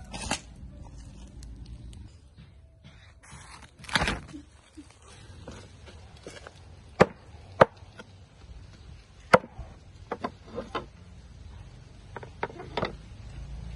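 A large knife striking a wooden chopping block: three sharp knocks, then a run of lighter knocks.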